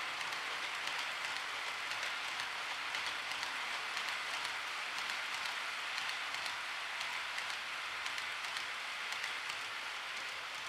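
Model freight train of Chiki 7000 rail-carrier wagons rolling past on the track: the steady hiss of small wheels running on the rails, with fine rapid clicking.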